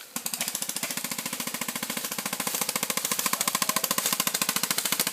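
Airsoft gun firing a long full-auto burst: a rapid, even stream of shots that starts just after the beginning and keeps going without a break.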